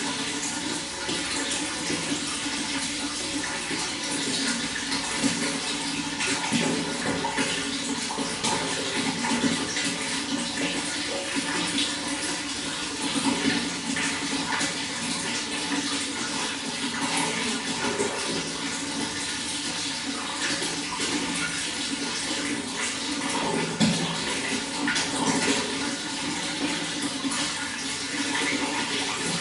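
Running water pouring steadily, with many small splashes and no pauses.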